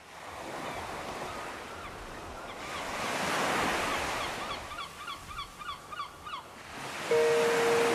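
Ocean surf washing in waves, swelling about three seconds in, with a run of short repeated bird calls over it. Music with held notes comes in near the end.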